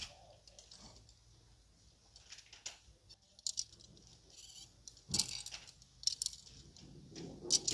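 Clear plastic clothes hangers with metal hooks clicking and scraping on a metal clothing rail as they are pushed aside one at a time: scattered clicks, the loudest about five seconds in and near the end.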